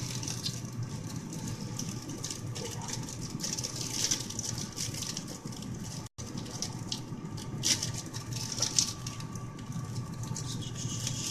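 Spoon stirring and scraping thick melted chocolate in a bowl: irregular small clicks and scrapes over a steady low hum, with a brief cut-out about six seconds in.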